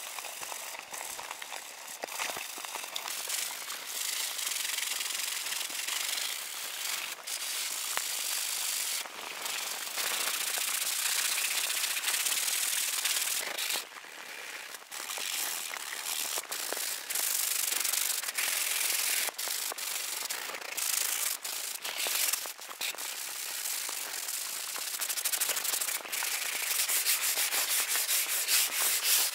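Hand-sanding a car body's curved fender with a sandpaper block: rasping back-and-forth strokes over the coated surface, coming faster near the end.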